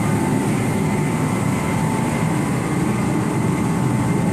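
Steady mechanical running noise of a machine, unchanging, with a faint steady high tone over it.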